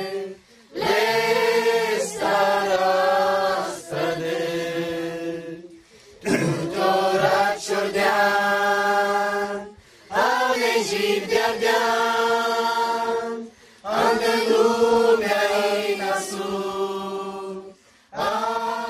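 Voices singing a hymn unaccompanied, in long held phrases of a few seconds each, broken by short pauses for breath.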